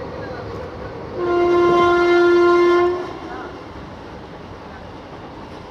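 Train horn sounding one steady blast of about two seconds, starting about a second in, over the train's continuous running noise.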